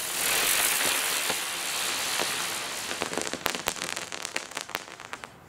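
Flying spinner firework hissing as it climbs, then a quick run of crackles for about two seconds, growing fainter.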